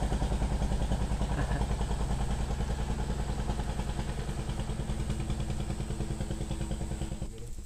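Small fishing boat's engine running steadily with an even, rapid pulse, dropping away suddenly near the end.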